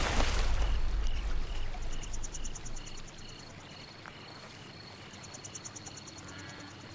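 A deep drum hit fades away over the first couple of seconds, leaving crickets chirping in the night. A steady chirp repeats about two or three times a second, with short bursts of faster, higher trilling.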